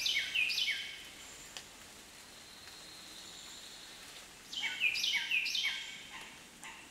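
Birds calling over a soft steady hiss: a run of three or four short, high notes, each dropping in pitch, at the start, and another such run about four and a half seconds in.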